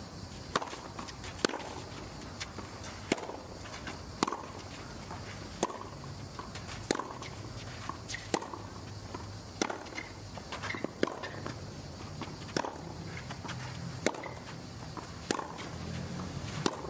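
Tennis ball struck back and forth in a long rally on a clay court: a serve, then about a dozen sharp racket hits spaced a second and a half or so apart, over low crowd background.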